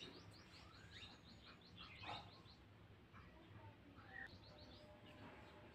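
Near silence with faint bird chirps in the background. There is a quick series of high chirps in the first second and another short run about four seconds in, plus a few brief whistled notes.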